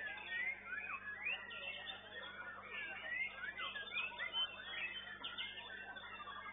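White-rumped shamas (murai batu) singing together: a dense, overlapping stream of quick whistled phrases and rising and falling glides. It is heard through a CCTV microphone, thin and cut off at the top, with a steady low electrical hum beneath.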